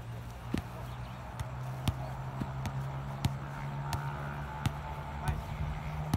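Football kicked back and forth on grass: short sharp knocks of foot on ball, roughly every half second, over a steady low hum.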